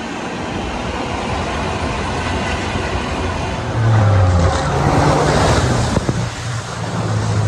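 Off-road vehicle's engine running as it drives into a deep puddle. About four seconds in, the engine note rises under load and water rushes and splashes up over the vehicle for about two seconds.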